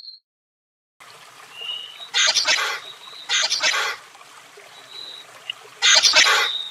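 Three short, raspy hissing bursts, each about half a second long, with a fine rattling texture, taken for a chameleon hissing. Brief thin whistles sound faintly between them.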